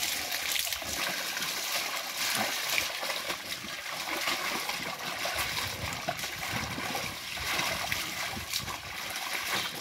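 Water splashing and sloshing as laundry is washed by hand in plastic basins and buckets: wet clothes dunked, wrung and lifted out, water pouring and dripping back in. The splashes come irregularly throughout.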